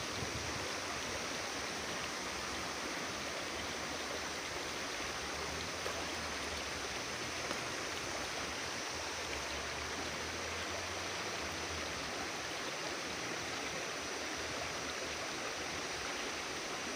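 Steady rush of water from a waterfall and its stream, an even hiss at a constant level.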